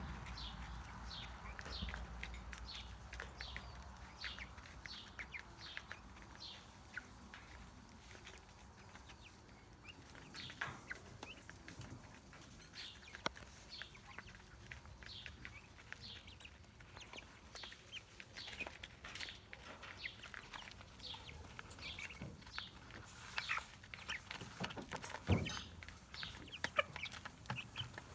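Young white broiler-type chickens peeping as they feed: many short, high, falling cheeps, several a second. A single thump near the end is the loudest sound.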